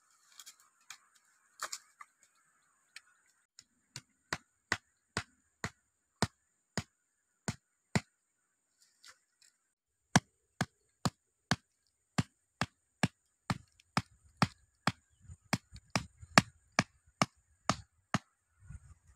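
Machete chopping a wooden stick: sharp, evenly spaced strikes about two a second, with a short pause midway.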